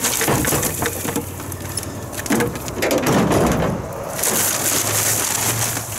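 Dry raked-up grass and thatch pouring out of a plastic bin into a paper yard-waste bag, with the stiff paper bag rustling and crinkling as it is handled.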